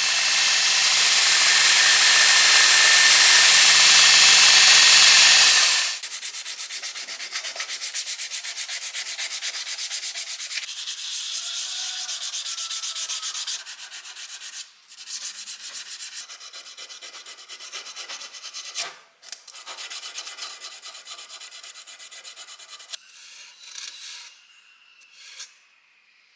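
A power tool runs loudly with a steady hum for about six seconds, then stops abruptly. It is followed by fast, even rubbing strokes of hand sanding, which break up into short, intermittent rubs and a few clicks in the second half.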